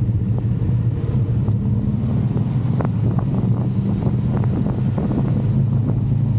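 Motorcycle engine running at a steady speed on the move, with wind rushing over the microphone.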